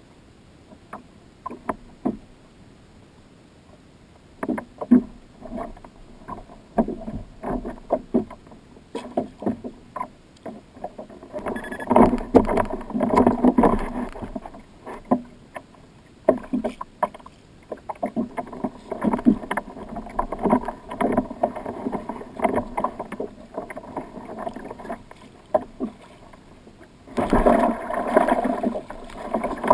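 Choppy water slapping and splashing against the hull of a Hobie fishing kayak, with irregular knocks and sloshes; near the end, a louder, denser rush of splashing right beside the kayak.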